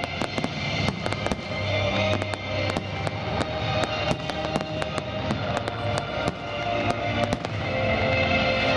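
Fireworks going off in quick succession, many sharp bangs and crackles a second, over music with long held notes.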